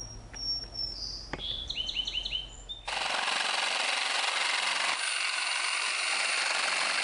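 A few bird chirps, then about three seconds in a hand-held power saw starts abruptly and runs steadily, cutting old weathered wooden lattice.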